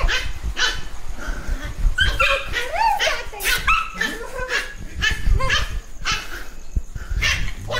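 A puppy barking and yipping over and over in short, high calls while it play-fights with a bigger dog.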